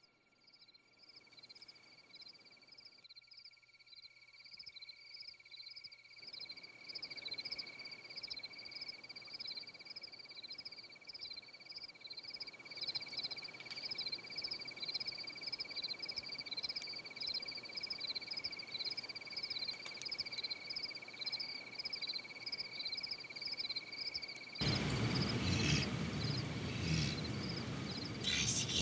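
Night-time insect chorus: a steady high trill with chirping above it that repeats a couple of times a second, fading up slowly over the first half. Near the end a sudden, much louder rushing noise with sharp clicks cuts in over it.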